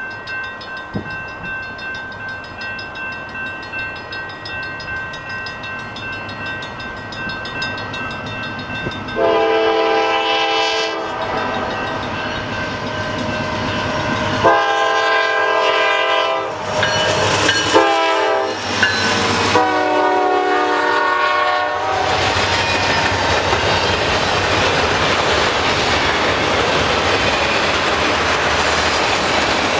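Diesel freight train approaching, its locomotive sound growing, then the lead locomotive's multi-chime air horn blowing long, long, short, long, the grade-crossing signal, from about nine seconds in to about twenty-two. After the locomotives pass, a string of autorack cars rolls by with a steady rumble and clatter of wheels on the rail joints.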